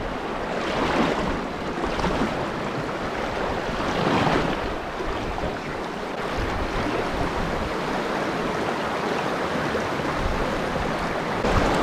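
Steady rush of river water, swelling briefly about a second in and again about four seconds in.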